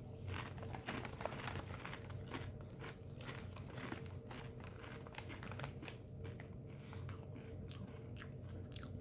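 Someone chewing Sun Chips Chili Lime multigrain chips close to the microphone: a run of irregular crisp crunches over a steady low hum.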